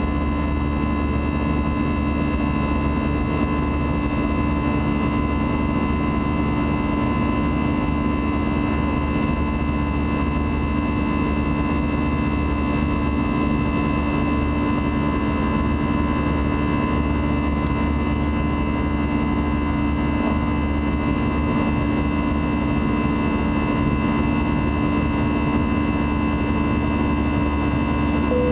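Airbus A320's turbofan engines at climb power, heard in the cabin over the wing: a steady drone of rushing noise with a buzzsaw of many steady tones from the fan held through it.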